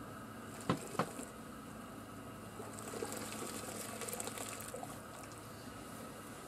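Water sloshing in a steel drum of scalding water as a chicken carcass is dunked and lifted out, with two sharp knocks about a second in over a steady low hum.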